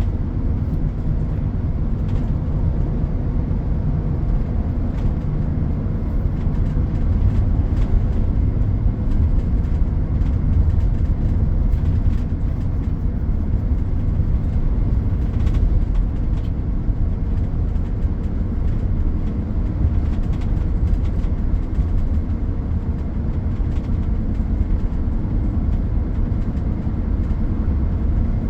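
Steady, deep engine rumble of heavy road-construction vehicles and machinery, unbroken throughout, with a faint hum above it.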